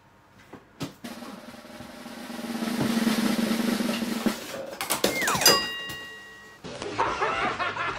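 Edited-in sound effects: a drum roll building in loudness, then a quick falling whistle-like glide that settles into a short held tone. A little past two-thirds of the way in, it cuts to other inserted audio with voices.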